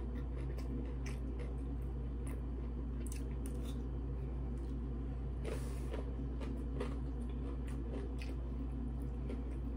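Close-up eating sounds: wet chewing and mouth smacks on rice and raw vegetables, with scattered small clicks and a longer crunchy bite about five and a half seconds in, over a steady low hum.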